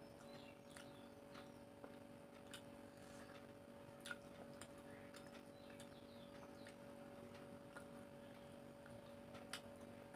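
Faint eating sounds of a meal eaten by hand: scattered soft clicks and wet smacks as fingers mix rice and curry on a metal plate and the mouth chews, over a steady low hum.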